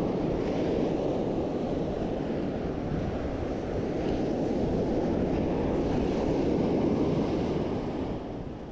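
Ocean surf breaking and washing up the beach, with wind buffeting the microphone: a steady rushing noise.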